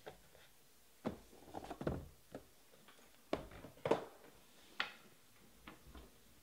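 Trading cards being handled and set down on a tabletop: an irregular series of light taps and clicks, the loudest about two and four seconds in.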